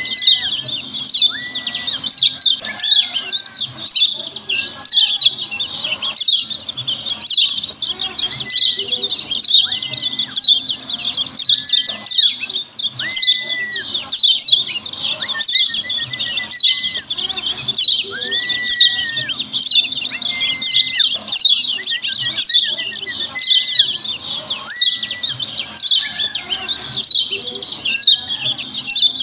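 Kecial kuning, a yellow white-eye, giving its loud, busy 'ciak ciak' chattering call: rapid, falling high chirps, with short level whistles breaking in lower down about once a second. It is played as a lure call to set other white-eyes answering.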